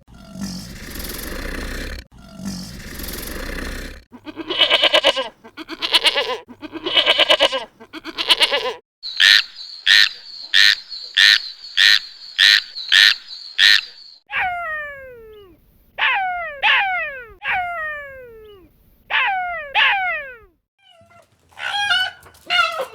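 A run of different animal calls, one kind after another. First come long rough calls, then four drawn-out pitched calls, then a quick even series of about nine short sharp calls, then several calls that fall steeply in pitch, and warbling calls near the end.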